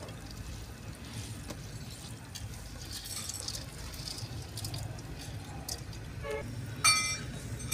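Soaked rice being tipped from a steel plate into a pot of boiling water: grains pattering in over a low steady rush, with one sharp metal clink near the end.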